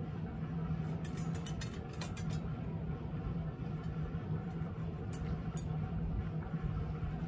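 A cat crunching dry kibble from a metal dish: clusters of small crisp clicks about a second in and again around five seconds in. A steady low hum runs underneath.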